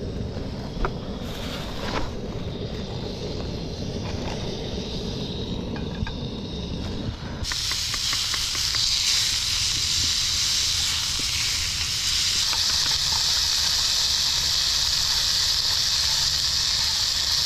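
A low, steady rumble with a few light clicks. About seven seconds in, loud sizzling starts abruptly as pieces of meat fry in a skillet on a portable gas canister stove, and it keeps going steadily.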